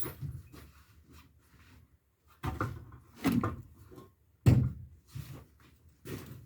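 A few dull wooden thuds and knocks of 2x4 timber being worked into place, the loudest about four and a half seconds in, with quieter handling noise between.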